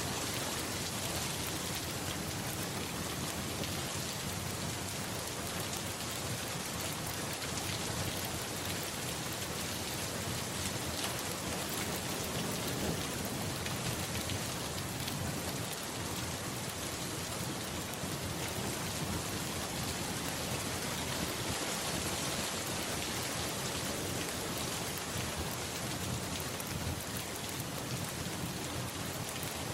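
Steady rain: an even hiss with a fine patter of drops.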